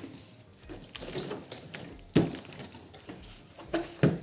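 Cardboard box and its packed contents being handled during unboxing: light rustling and scraping with a few dull knocks, the loudest about two seconds in and two more close together near the end.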